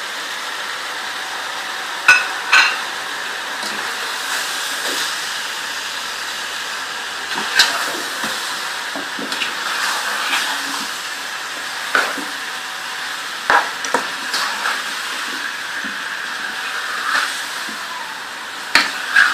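Chicken and sliced onions sizzling in oil in a pot while being stirred with a wooden spoon, with a steady hiss and scattered sharp knocks against the pot.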